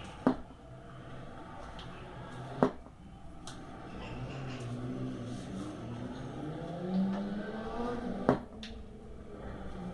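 Handling noise from a small plastic-cased 12 V lead-acid motorcycle battery being wiped with a tissue on a wooden table, with three sharp knocks, one near the start, one a couple of seconds in and one near the end. In the background a motor engine hums from about the middle, rising in pitch and getting louder before it fades.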